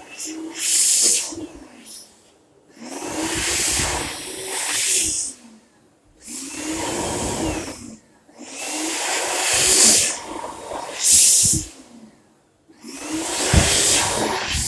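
Crocodile hand dryer blowing in short bursts, cutting out and starting again about five times: its hand sensor keeps losing the hands, so the airflow keeps stopping.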